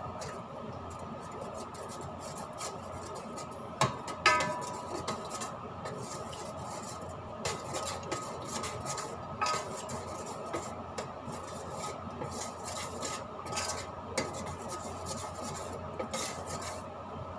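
A utensil stirring sauce in a pot, with scattered clinks and scrapes against the pot's sides, over a steady background hum.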